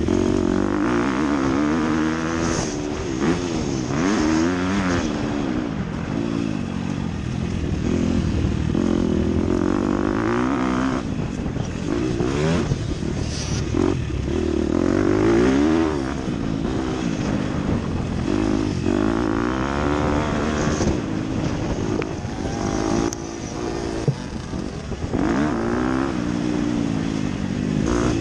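Dirt bike engine revving up and down over and over as the rider accelerates, shifts and backs off, its pitch rising and falling every second or two.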